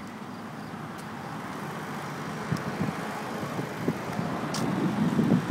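Road traffic noise: a vehicle passing along the street, a steady rushing that grows louder toward the end.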